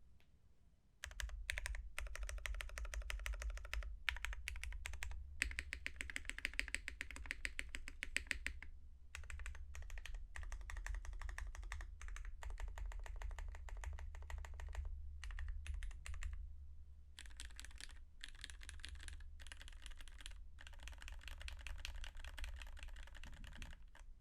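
Typing on a custom MC65 mechanical keyboard with lubed Cherry Hyperglide MX Black linear switches in a top-mounted aluminium plate, GMK keycaps and no foam or dampening: fast runs of key strokes with short pauses, starting about a second in.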